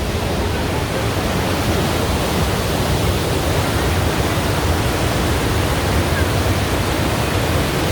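Düden Waterfall: a steady, loud rush of falling water with no breaks.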